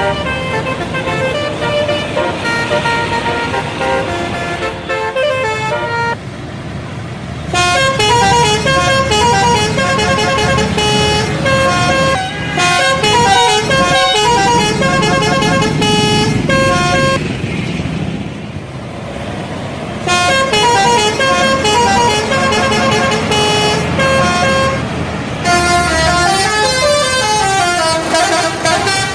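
Indonesian bus 'telolet' multi-tone air horns playing quick runs of changing notes in several long bursts, with short breaks between them.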